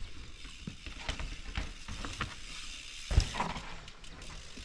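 Mountain bike clattering over rough, rocky trail ground: irregular clicks and knocks, with a heavier thump about three seconds in.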